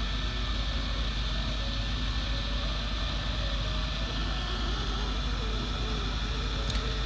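Hot air rework gun blowing a steady stream of hot air onto a graphics card's GPU chip to reflow it.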